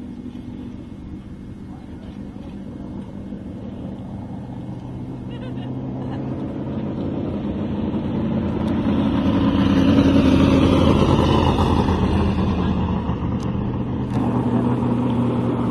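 Sprint car engine running, growing louder to a peak about ten seconds in with its pitch rising and falling, then easing off.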